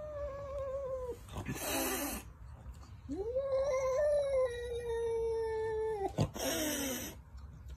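Domestic cat giving long, wavering warning yowls at its own reflection in a mirror, taking it for a rival cat: one yowl fades out about a second in, a second lasts about three seconds, and each is followed by a short hiss.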